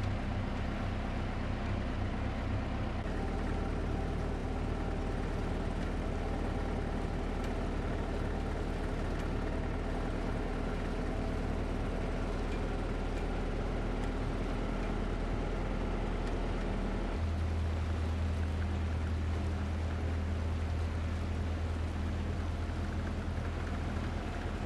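A motor engine running steadily with a low hum. Its note changes about 3 seconds in and again about 17 seconds in, as if the engine speed shifts.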